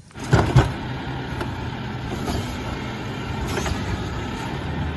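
Truck engine running steadily with an even low hum, two brief knocks about half a second in.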